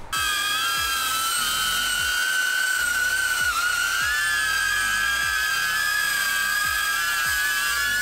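DJI Avata's ducted propellers whining as it hovers, several close high tones wavering together in pitch.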